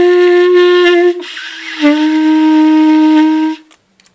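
Clarinet playing two long held notes, each about a second and a half with a short break between: open G (no fingers down), then F with only the thumb hole covered, a step lower.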